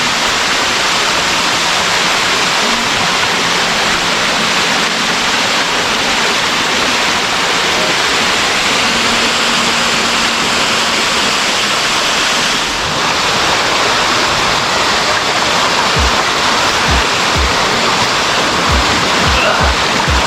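Waterfall: a steady, loud rush of falling water, with a few brief low thumps in the last few seconds.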